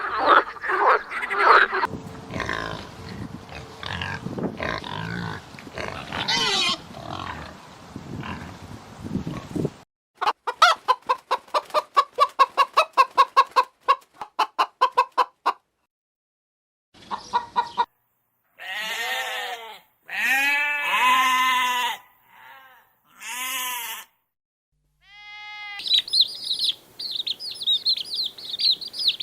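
Recordings of farm animals calling, one after another with clean cuts and silent gaps between them. There is a stretch of clucking fowl, then a fast run of about four calls a second, then several short separate pitched calls. Near the end comes steady high chirping of small birds.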